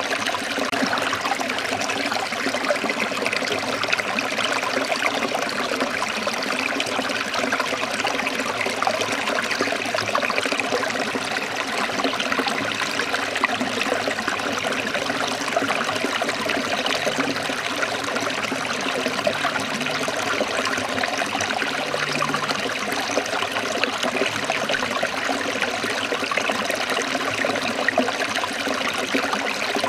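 Running water flowing steadily and evenly, with no breaks or changes.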